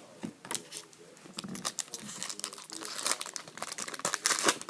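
Plastic and paper crinkling and rustling as trading cards are handled, with dense irregular crackles that get busier and louder about halfway through.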